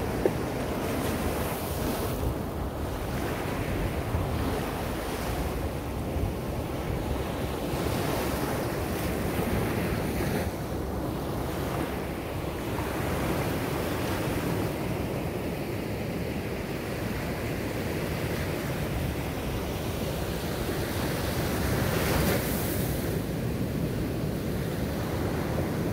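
Ocean surf breaking and washing up a beach, a continuous rush of waves, with wind buffeting the microphone. One wave crashes louder near the end.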